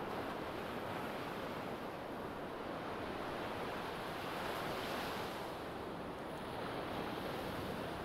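Sea waves breaking and washing up a sandy beach: a continuous rushing surf that swells a little about halfway through.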